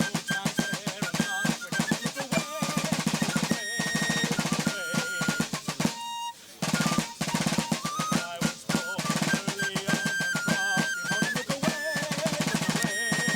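Marching snare drums playing rolls and rapid beats, with a high melody over them, as in military fife-and-drum march music. The drumming breaks off briefly about six seconds in, then resumes.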